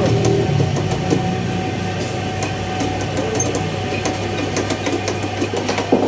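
Workshop press pressing a steel sleeve into a motorcycle cylinder block: a steady low machine hum with a thin steady tone above it and scattered metallic clicks and ticks.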